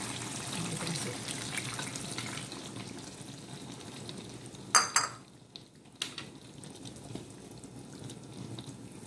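Thin coconut milk and yogurt mixture poured from a bowl into a simmering fish curry, a steady liquid pour and bubbling. About five seconds in a sharp clack as the empty bowl is set down, a second knock a moment later, then a wooden spatula stirring the curry in the pan.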